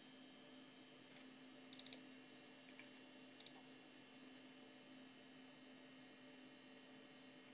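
Near silence over a steady low electrical hum, broken by a quick cluster of soft mouse clicks just under two seconds in and another click about a second and a half later, as a desktop Macintosh's control panel is opened.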